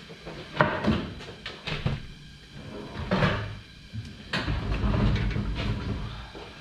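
Irregular knocks and clunks from tools and parts being worked on a Corvette torque tube: a few sharp separate hits in the first few seconds, then a longer low rumbling clatter near the end.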